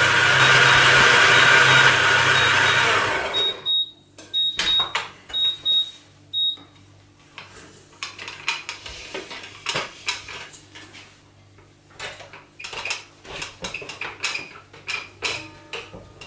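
Stand mixer motor running at speed, kneading bread dough with the dough hook, then stopping suddenly about three and a half seconds in. A string of short high beeps sounds around the stop. After it come repeated clicks and metallic clanks as the mixer head is lifted and the dough hook and stainless steel bowl are handled.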